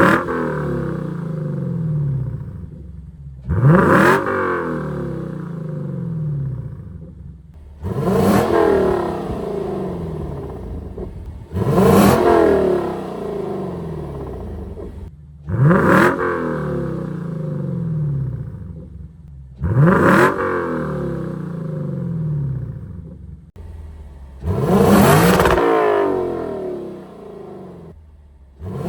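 Lexus LC 500's 5.0-litre V8 on a Power Craft mid-pipe exhaust, blipped about every four seconds: each rev climbs sharply, then falls back to idle.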